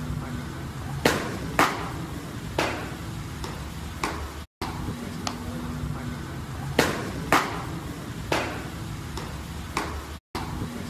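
Baseballs smacking into catcher's mitts in a bullpen. There is a sharp pop about a second in, another about half a second later, and a third a second after that. After a short drop to silence, the same sequence of pops comes again about six seconds later.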